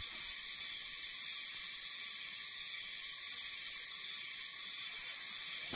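A steady high-pitched hiss with no distinct events: even background hiss and nothing else.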